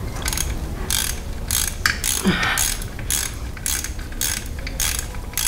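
Hand socket ratchet clicking in short, irregular bursts of strokes as a bolt in a truck's engine bay is turned.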